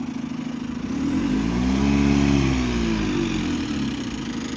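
Bus engine revving up from about a second in, loudest around two seconds, then easing back down to a steady hum.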